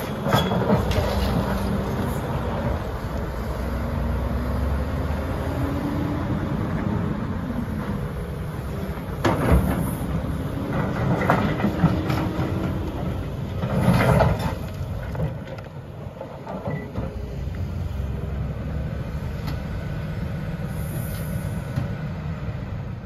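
Volvo EC390 crawler excavator's diesel engine running under load as it digs and swings, with hydraulic noise. Rock and soil clatter in and out of the bucket, loudest twice near the middle.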